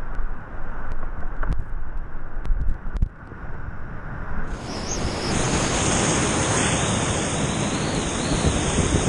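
Whitewater rapids rushing loudly around a kayak, heard close from a camera on the boat. For the first half the roar is muffled, with a few sharp knocks. About halfway through it opens into a loud, even hiss-like rush.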